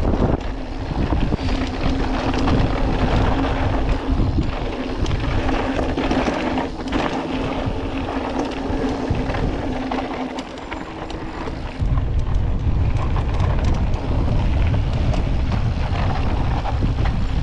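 Mountain bike descending a dirt trail, recorded on the bike's action camera: wind buffeting the microphone over the continuous noise of tyres and rattling bike parts. A steady hum runs through the first two-thirds, and a heavy low wind rumble comes back about twelve seconds in.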